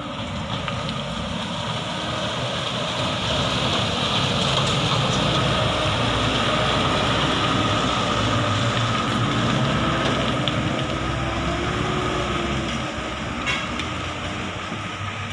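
Light cargo truck's engine running as it crawls through deep mud close by, growing louder to a peak about halfway through and then fading as the truck moves away.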